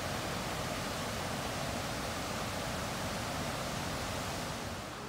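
Waterfall rushing, a steady even roar of falling water that softens slightly near the end.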